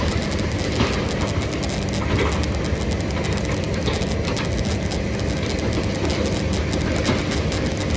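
Heavy diesel construction machinery running steadily, with dense clattering and knocking throughout.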